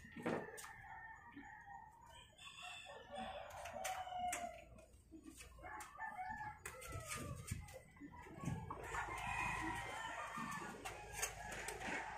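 Birds calling in the background, including a drawn-out call about four seconds in, over scattered light clicks and knocks.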